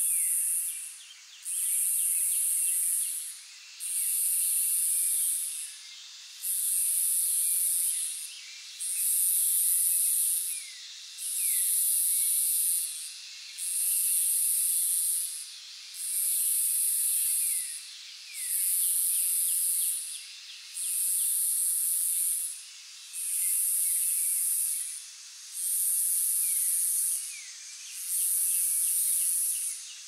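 Cicadas buzzing in a high, hissing drone that swells and drops in regular pulses about every two seconds. Underneath runs a fainter steady insect hiss with occasional faint falling chirps.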